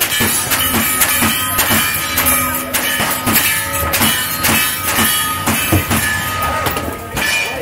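Lever-action rifles fired in a fast string, about three shots a second, one of them loaded with black powder, with steel targets ringing from the hits.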